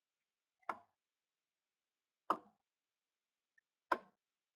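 Three short, faint clicks evenly spaced about a second and a half apart, in otherwise dead silence.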